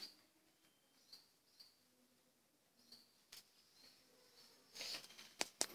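Near silence: room tone with a few faint, short high chirps, and a couple of sharp clicks near the end.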